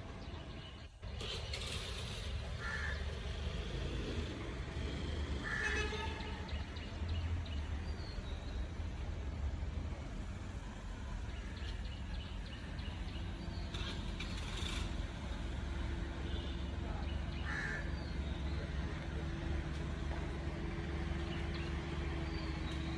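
Datsun hatchback moving slowly at low engine speed, a steady low running hum that grows a little stronger in the second half, with a few short bird calls over it.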